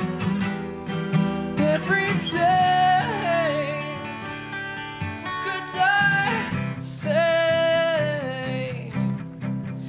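Acoustic guitar music: strummed chords under a lead line whose notes bend and slide.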